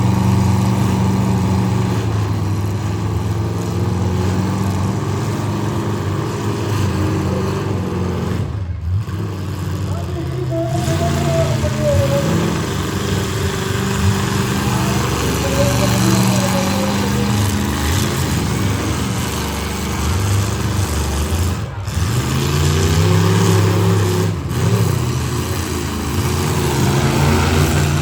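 Engines of full-size demolition derby cars running and revving, their pitch rising and falling throughout.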